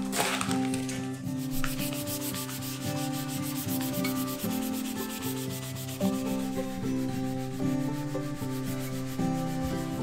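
A wooden chopping board being rubbed by hand with a folded sheet: a steady, scratchy rubbing of the wood grain, under soft background music with held notes.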